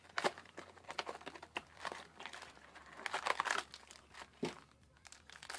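Foil trading-card booster pack wrappers crinkling and tearing as packs are opened by hand: irregular rustles and rips, busiest about three seconds in.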